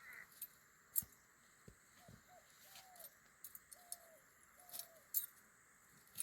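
Faint bird calls: about five short notes with a slight downward bend at the end, spread over a few seconds. Scattered sharp clicks come between them, the loudest about a second in.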